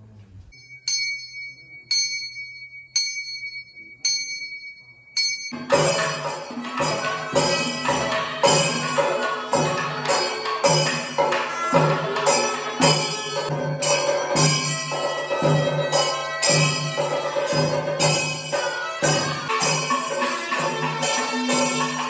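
A ringing metal percussion instrument is struck five times about a second apart. From about five seconds in, traditional Kerala temple percussion takes over: chenda drums beaten fast with cymbals, over steady held tones.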